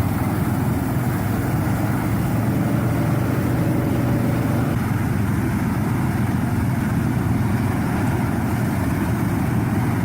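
Propane flame weeder running steadily: a constant engine hum under a broad rushing noise, with a faint steady tone that drops out about halfway through.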